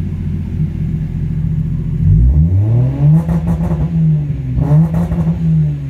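Toyota 1JZ-GTE twin-turbo inline-six idling, then revved twice against the BEE-R rev limiter. About two seconds in the pitch climbs and holds flat at the limit with a stuttering crackle, then drops. Near the end it climbs and holds again before falling back.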